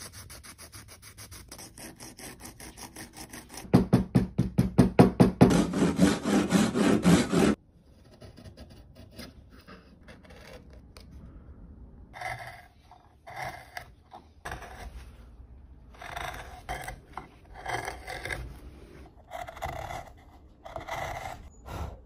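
Hand tools scraping and carving wood in rhythmic strokes. About four seconds in, the strokes turn loud and rapid for a few seconds and then stop abruptly. Later comes a run of slower, separate strokes, each about half a second long.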